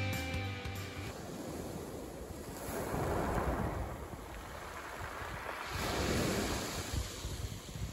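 Small waves breaking and washing up a pebble beach, the surf swelling twice about three seconds apart. Background music ends about a second in.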